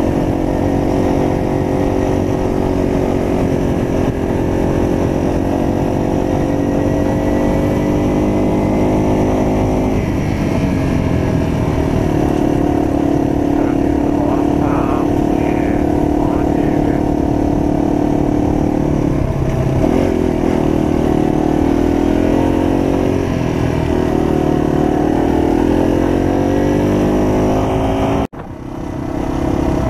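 Yamaha TW200 motorcycle's single-cylinder four-stroke engine running under way. The note falls about ten seconds in, then rises and falls again with throttle and gear changes. The sound cuts out for a moment near the end.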